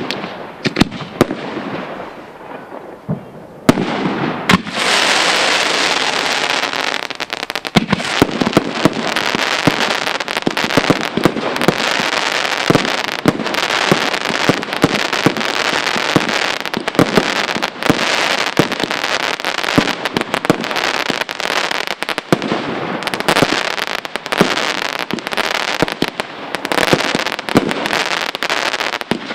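Aerial fireworks display: a few separate sharp bangs, then from about four seconds in a dense, continuous barrage of shell bursts and crackling that barely lets up.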